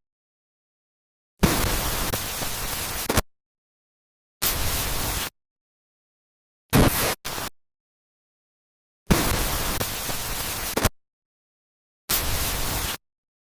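Bursts of hiss-like static noise that switch on and off abruptly with dead silence between: five bursts, two of them about two seconds long, the others under a second, one of those broken in two, in a pattern that repeats.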